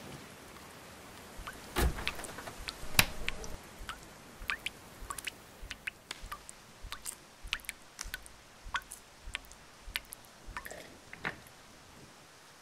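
Two thumps, then a run of light, irregular footsteps on a hard floor, roughly two a second, stopping about 11 seconds in.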